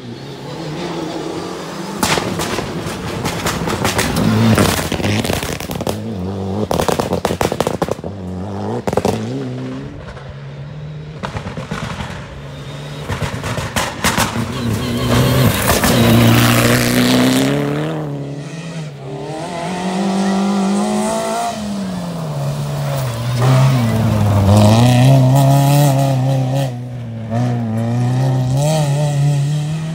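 Rally cars at speed on a gravel stage, one after another, engines revving hard and dropping back through gear changes and corners, with gravel spraying under the tyres. Bursts of sharp cracks and pops sit on top of the engine note in the first third.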